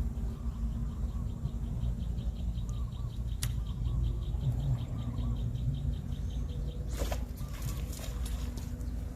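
A motor running with a steady low hum. Over it comes a fast high ticking, about seven ticks a second, from about half a second in until about six and a half seconds. There is a single sharp click about three and a half seconds in, and a short burst of clattering around seven seconds.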